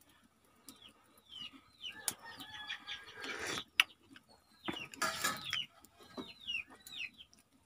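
Chickens calling: a run of short, falling chirps, with two louder, rougher calls about three and five seconds in.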